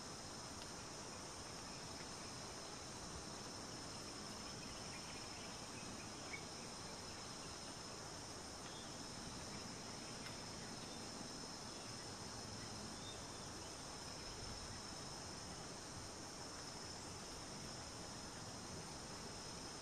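Faint, steady insect chorus: a constant high-pitched drone over a soft hiss of outdoor ambience, with one faint click about six seconds in.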